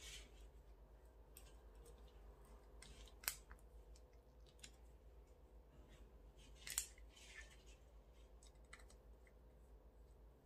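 Faint clicks and scrapes of a small screwdriver tightening the cover screw of an inline rocker switch on a lamp cord, with two sharper clicks about three and seven seconds in.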